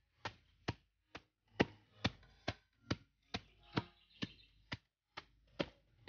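Machete chopping banana-trunk sheaths into small pieces with steady, sharp strikes, about two a second.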